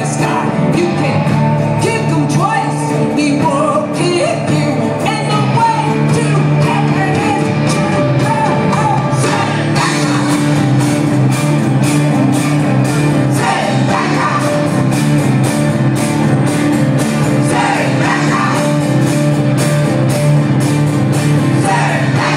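Live rock band playing loudly: electric guitars, bass and drums under strummed acoustic guitar, with a voice singing over the band.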